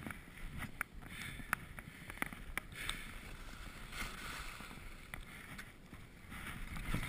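Skis hissing and scraping through soft, cut-up snow, the swish swelling and fading with each turn, over a low rumble, with scattered sharp clicks.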